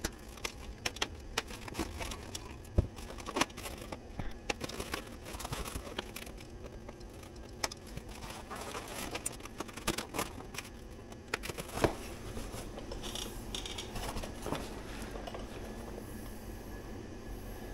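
Side cutters snipping plastic zip ties: a run of sharp, irregular clicks, with foam packing wrap rustling as it is handled and pulled away.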